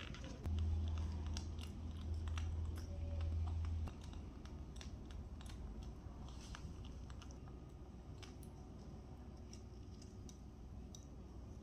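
Small plastic hair clips and hair rings clicking and rattling as they are picked out of a plastic tray and handled, in a scatter of light clicks. A loud, steady low hum runs for about three seconds, starting about half a second in.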